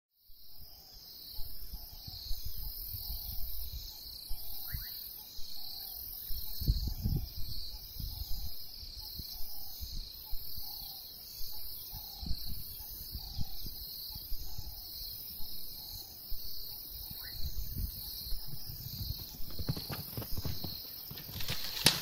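Bush ambience: insects shrill steadily in two high, pulsing bands, with a low call repeating every half second or so and irregular low rumbles of wind. In the last two seconds, the thudding hoofbeats of galloping giraffes come up close on the dirt track.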